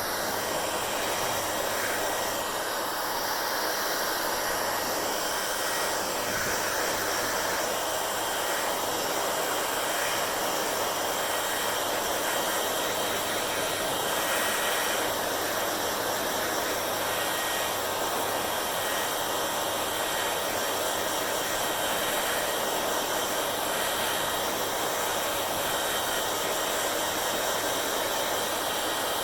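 Hair dryer running steadily, an even rushing noise of blown air that holds the same level throughout.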